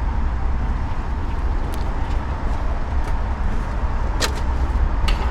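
Steady low rumble of road traffic going by, with a few short sharp clicks or knocks, the loudest about four seconds in.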